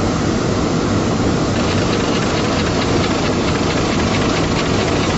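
Steady in-flight aircraft noise: a constant low rumble of engines with rushing air, the hiss turning a little brighter about a second and a half in.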